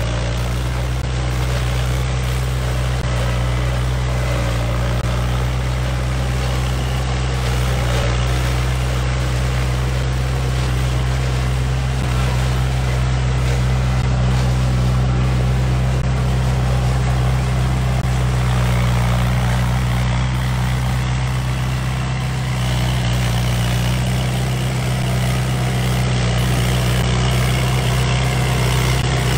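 Kubota diesel tractor engine running steadily at constant speed while mowing grass, a low even hum.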